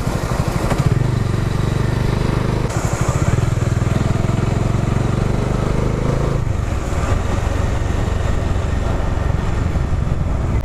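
Motorcycle engine running while riding. Its note climbs steadily from about three seconds in, then drops back suddenly just past six seconds.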